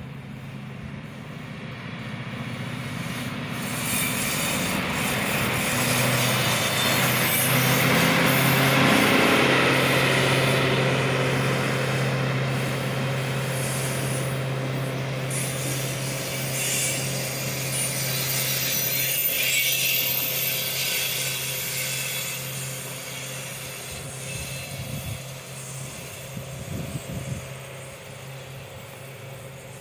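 Locomotive hauling two Helsinki metro cars passing by on rail: a steady engine hum with wheel and rail noise that builds over the first several seconds, peaks as the cars go by, then fades as the train moves away.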